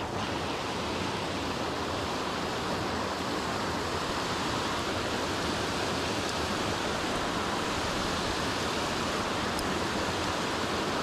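Small waterfalls rushing over rock ledges into a river pool: a loud, steady, even roar of falling water.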